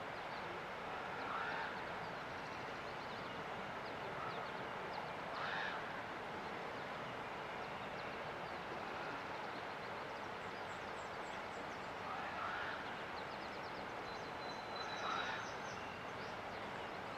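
Steady rushing of river water, with songbirds chirping over it: a short call every few seconds, and quick high trills past the middle and again near the end.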